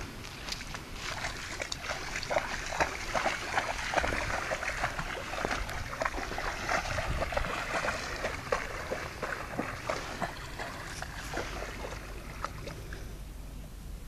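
A dog wading through a shallow pond, its legs churning the water in a quick run of irregular splashes that thin out and stop near the end.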